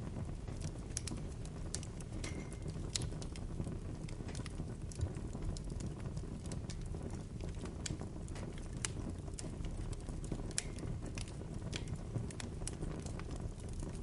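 Bonfire burning: irregular sharp crackles and pops, a couple each second, over a steady low rumble of the flames.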